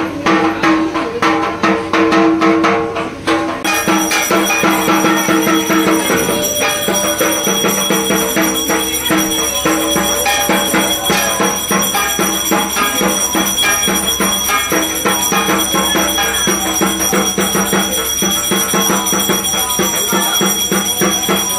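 Traditional Indian music with fast, dense percussion and a jingling metal sound. From about four seconds in, a steady high ringing runs over it.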